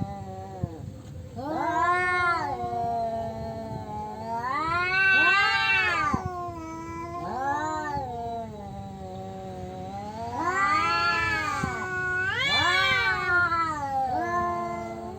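Tomcats caterwauling at each other in a territorial standoff: a series of long, drawn-out yowls, each rising and then falling in pitch, some overlapping.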